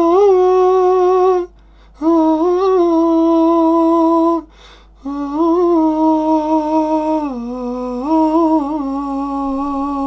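A man's voice singing long wordless held notes in three phrases, with short breaths between them; in the last phrase the pitch drops for about a second before rising again. It is an airy vocal layer for an a cappella arrangement, which he calls hard because it takes a lot of breath.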